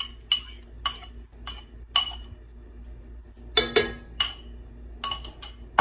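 Metal spoon clinking and scraping against a ceramic bowl as the tahdig mixture is scraped out into the pot. Sharp clinks come about every half second for the first two seconds, then two quicker flurries of clinks in the second half.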